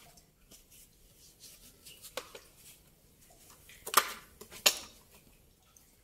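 Loose cave rocks clacking and scuffing underfoot and in hand as someone clambers over them. Three sharp knocks of stone on stone stand out: one about two seconds in, then two louder ones less than a second apart a little past the middle.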